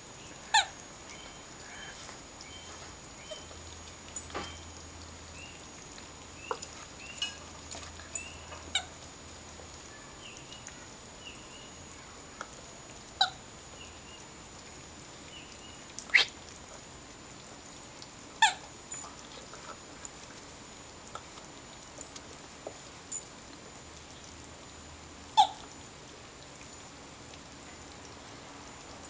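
A puppy's rubber squeak ball being chewed and squeezed, giving short squeaks at irregular intervals. About five are loud and several are fainter, with long gaps between them.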